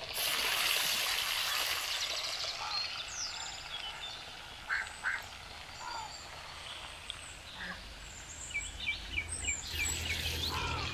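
Banana-flower vadai dropped into hot oil, sizzling loudly at first and then settling to a steady fry. Short animal calls sound over it, several of them near the end.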